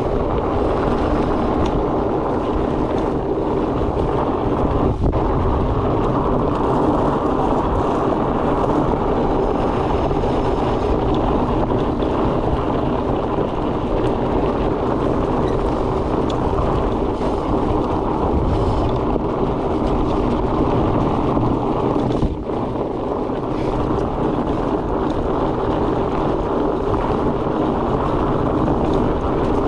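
Fat bike rolling along a trail with a steady rumble of tyre noise and wind on the microphone. A faint steady hum from the wide tyres runs under it.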